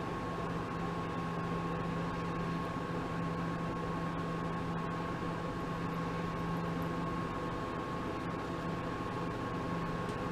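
Mini lathe running steadily: an even motor hum with a faint high whine.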